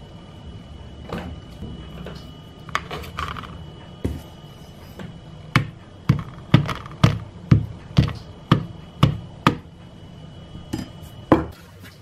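Knife tip docking the bottoms of unbaked pie crust shells, each prick clicking sharply on the ceramic plate beneath, about two taps a second for several seconds. The holes keep the crust from puffing up as it bakes.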